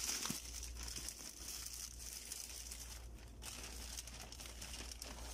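Plastic packaging crinkling and rustling as a boxed item is handled and pulled out of a plastic courier mailer bag and its clear plastic wrap, with a few small clicks, over a low steady hum.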